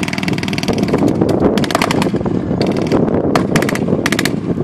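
Machine gun firing blanks in several short bursts of rapid shots, over the steady low rumble of an armoured vehicle's engine.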